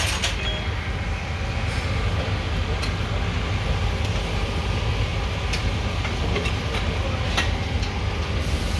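A steady low machine rumble, with a few sharp clicks from tools being handled about three, five and a half, and seven and a half seconds in.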